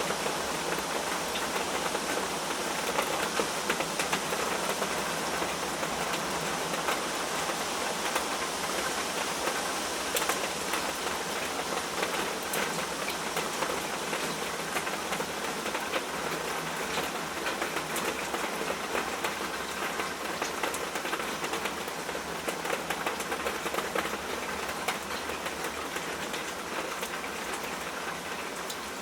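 Steady rain falling, a dense patter of many drops hitting a surface.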